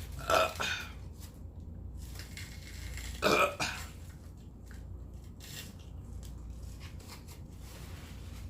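A person burping loudly twice: one short burp just after the start and a second, slightly longer one about three seconds later.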